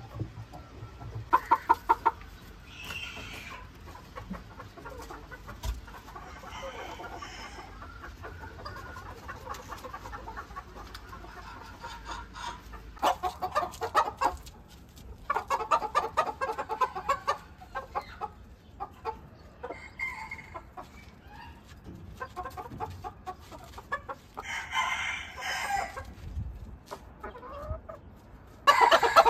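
Ko Shamo chickens clucking in several bursts of rapid pulsing calls, the loudest about halfway through and right at the end.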